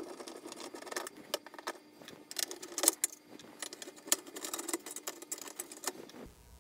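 Light metallic clicks and rattles of a screwdriver and small screws being worked out of a Commodore 64C's sheet-metal shield, scattered irregularly, with a louder clack about three seconds in.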